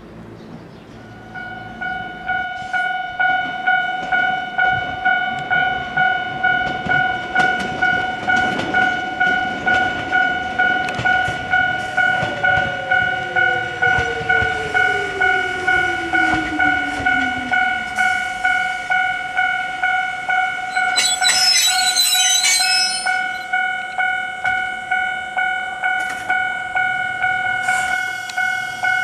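Japanese level-crossing warning bell ringing in an even, repeating rhythm as an Ichibata Electric Railway 3000 series electric train runs by. Midway a whine falls slowly in pitch as the train slows, and a short high-pitched burst comes about two-thirds of the way through.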